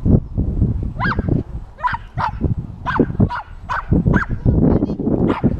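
A dog barking repeatedly, about eight short barks in an uneven run, over wind rumbling on the microphone.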